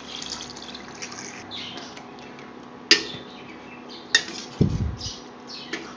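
Water pouring into a stainless-steel pan of curry masala, then a steel ladle stirring the curry and clinking against the pan about four times.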